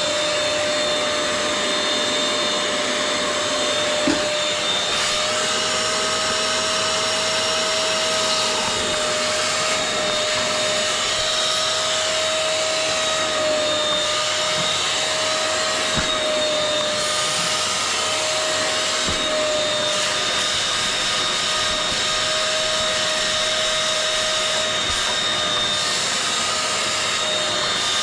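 Wet vacuum extractor running steadily with a constant whine, drawing water and leftover soap out of wet seat fabric, with a couple of small knocks.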